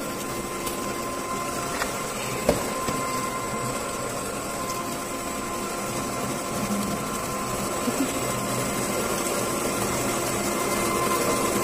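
Electric vegetable slicing and dicing machine running steadily, a motor hum with a thin steady whine, while tomatoes are fed into its hopper. A few light knocks, the sharpest about two and a half seconds in.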